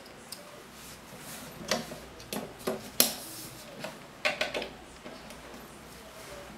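Handling noise from a microphone cable: a scattered run of short clicks and light knocks over about three seconds, starting about a second and a half in.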